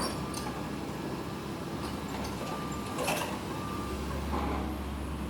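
Komatsu PC130 excavator's diesel engine running steadily while its travel alarm beeps in short repeated tones, about a second apart.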